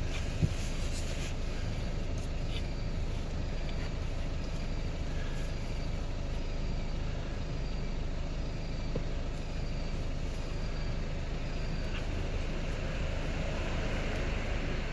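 Steady low vehicle-like rumble, with a sharp click about half a second in and a few faint clicks later.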